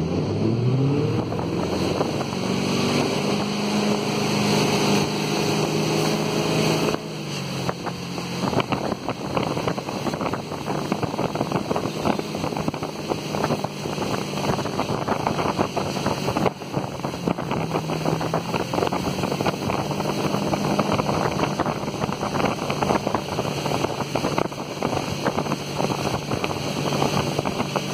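Motorboat engine revving up as the boat pulls away, then running steadily at speed. From about seven seconds in, wind on the microphone and the rush of water spray from a barefoot water skier are heard over it.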